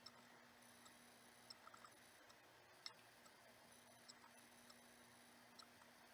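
Near silence with faint, scattered light clicks and ticks from small decoration pieces being handled, one sharper click about three seconds in, over a faint steady hum.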